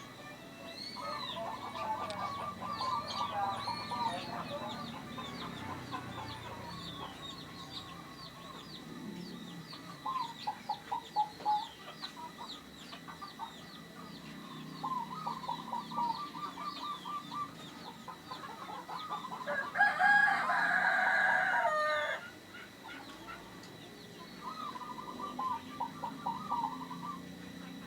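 Zebra dove cooing in several runs of rapid staccato notes, with small birds chirping high and steadily. About two-thirds of the way in, a rooster crows once, the loudest sound.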